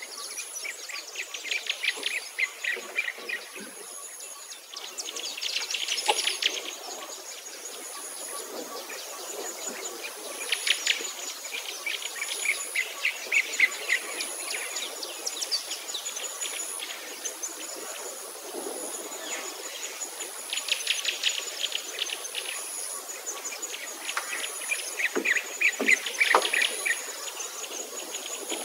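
Wild birds chirping and trilling in quick runs of notes that come every few seconds, over a thin high-pitched tone that keeps breaking off and starting again.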